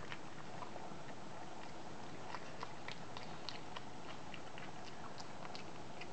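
Two toy poodle puppies chewing and crunching treats: irregular small clicks and crunches over a steady hiss.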